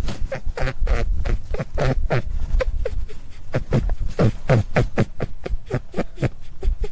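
Rabbit giving a rapid series of short calls, about four a second, each dropping in pitch, over a steady low rumble.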